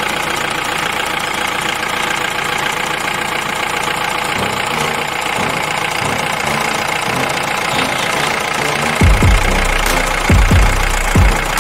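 Steady engine sound, like a truck engine idling with a knock, running evenly throughout. Several short low thumps come in the last few seconds.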